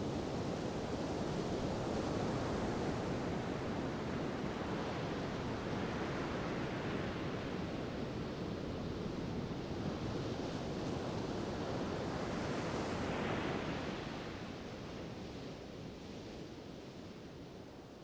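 Big ocean waves surging against a jetty: a continuous rush of surf that swells several times and dies away over the last few seconds.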